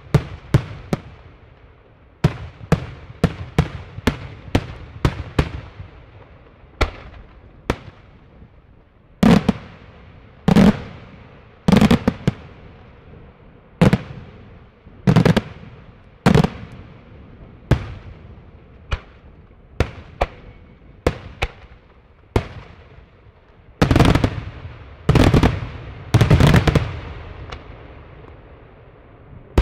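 Daytime aerial fireworks shells bursting in a long string of sharp bangs, each with an echoing rumble. Quick, lighter bangs come first, then heavier booms about a second apart, with a cluster of the loudest near the end.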